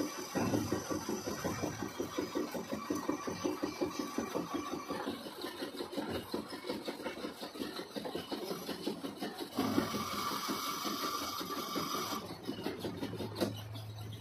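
Metal lathe boring out the bore of a bevel pinion blank with a boring bar: the cut comes as a fast, even rhythmic chatter, with a steady high tone joining for about two seconds past the middle. Near the end the cutting stops and only the lathe's steady low running hum is left.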